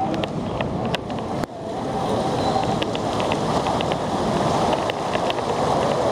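Wind blowing across the microphone, a steady rushing with scattered light ticks, aboard a cruise ship under way at sea.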